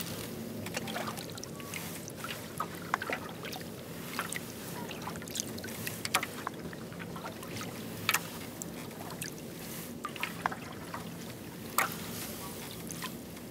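Double-bladed kayak paddle strokes dipping into calm water, with drips, small splashes and irregular sharp ticks and knocks over a steady low hum; the sharpest knocks come about eight and twelve seconds in.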